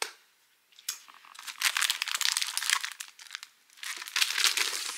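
Packaging crinkling and rustling as it is handled, in two spells: one starting about a second and a half in, and another near the end.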